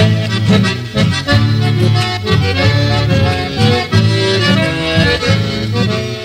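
Instrumental interlude of a folk song: accordion playing the tune over a rhythmic low accompaniment, with no singing.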